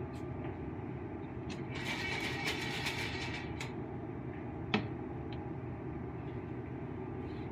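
A foil-covered metal pot being shaken and slid on the stove grate for about two seconds, its unpopped kernels and coconut oil rattling inside. A single sharp knock follows about a second later. Steady background noise runs underneath.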